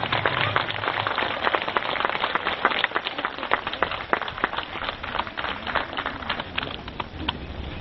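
Crowd clapping and applauding: many hands giving a dense patter that thins out near the end.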